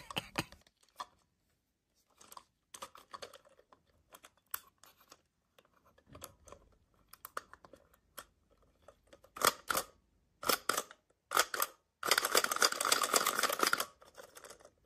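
Plastic toy figure handled and its head pressed down to work its face-changing mechanism: scattered light plastic clicks and taps, then a few louder clicking bursts and about two seconds of continuous plastic rubbing near the end.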